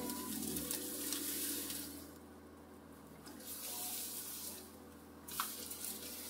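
Hyundai R220LC-9A excavator running, heard from inside the cab: a steady diesel hum under bursts of rushing hiss, the first about two seconds long and a shorter one in the middle, as the boom works the rake through brush. A sharp click comes about five seconds in.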